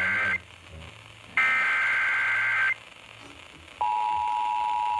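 Emergency Alert System SAME header data bursts: harsh, buzzing digital tones in bursts just over a second long, one ending right at the start and another a little over a second in. About four seconds in, the steady two-tone EAS attention signal starts abruptly, marking the start of a new alert.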